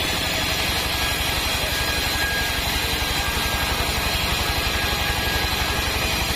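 Band sawmill running: a steady engine-like drone with a fast, even low pulsing and a faint steady high whine above it.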